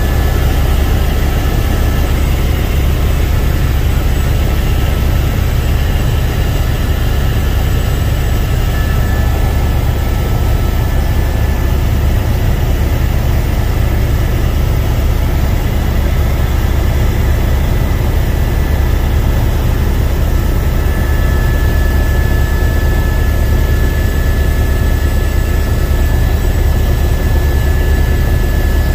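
Helicopter in flight heard from inside the cabin: a loud, steady low rumble from the rotor and engine, with thin steady whining tones above it.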